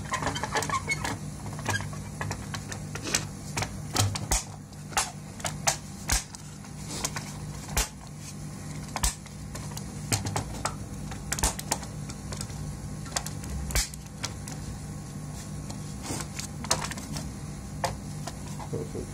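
Irregular sharp clicks and knocks of a PS4 Pro power supply's black plastic casing being handled and snapped together by hand, some in quick clusters.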